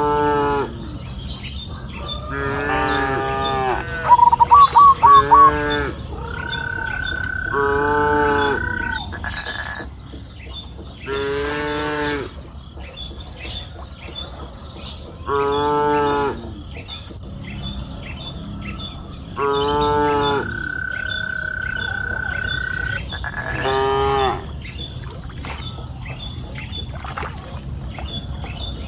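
Cows mooing, about eight separate moos coming every few seconds. A loud run of quick high chirps cuts in about four seconds in, a steady high tone is held twice for a couple of seconds, and faint bird chirps sound throughout.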